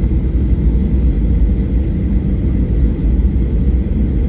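Steady, loud low rumble of a Boeing 737-800 and its CFM56-7B turbofan engines, an even roar with no changes.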